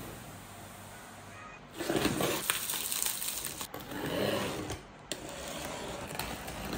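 Plastic stretch wrap crinkling and tearing as hands pull it off a cardboard parcel, in a few rustling bursts starting about two seconds in.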